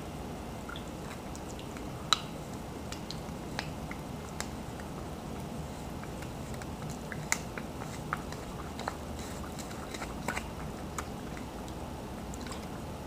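A person eating close to the microphone: sparse wet mouth clicks and smacks over steady low room noise, with a sharper click about two seconds in and another about seven seconds in.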